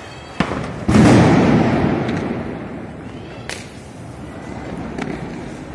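Firecrackers going off: a sharp crack, then about a second in a loud bang that echoes and fades over about two seconds, followed by two fainter cracks later on.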